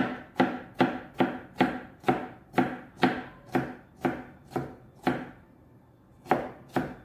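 Kitchen knife chopping a green vegetable on a plastic cutting board: steady knife strokes about two and a half a second, stopping for about a second near the end before starting again.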